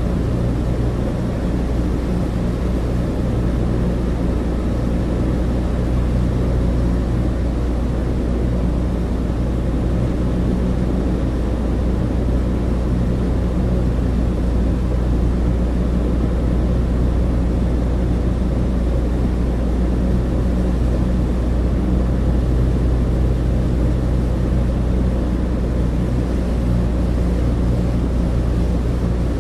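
Douglas DC-3's two radial piston engines and propellers droning steadily, heard from inside the cabin: several low, constant tones over a rushing hiss, with no change in pitch or level.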